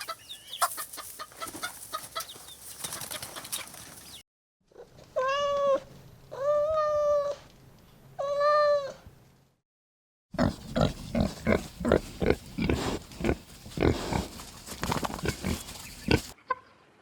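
A run of farm animal sounds with short silent breaks between them. First, hens clucking. Then three long calls, each held at an even pitch. Last, a quick series of short grunts.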